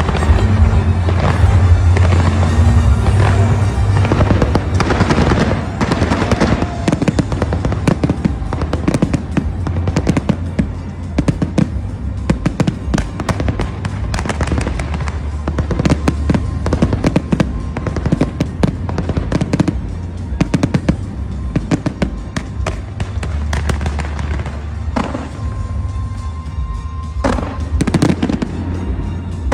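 Fireworks going off in a dense, irregular run of bangs and crackles, busiest in the first half, with music playing underneath.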